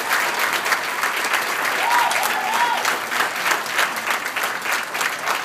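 A roomful of people applauding steadily, with one short wavering whoop from a single voice about two seconds in.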